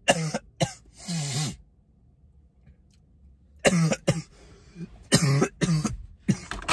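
A man coughing in two fits: three harsh coughs in the first second and a half, then, after a pause of about two seconds, a run of several more.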